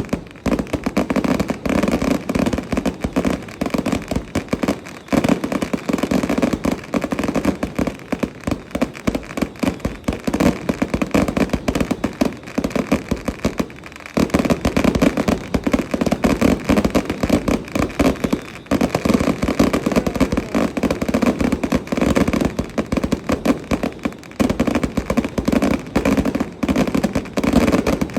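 Firecrackers going off in dense, rapid, continuous popping, with a couple of brief lulls in the middle.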